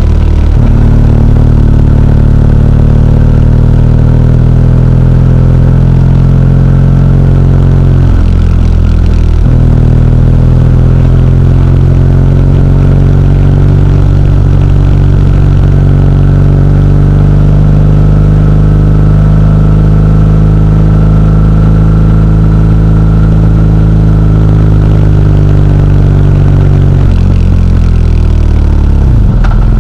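Motorcycle engine running under way, its pitch shifting slowly with speed; it dips briefly twice, about eight and nine and a half seconds in, as with gear changes, and falls away near the end as the bike slows.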